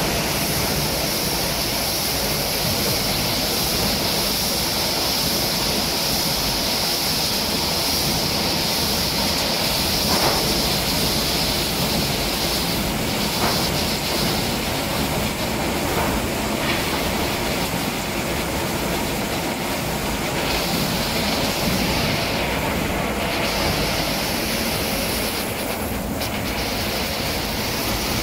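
160 kW metal chip shredder running under load: a steady, loud mechanical din with a hissing rattle of shredded metal chips being conveyed and poured.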